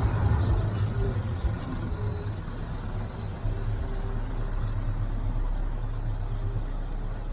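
Heavy truck's diesel engine running at low speed as the rig rolls slowly past at close range: a steady deep rumble, loudest at the start.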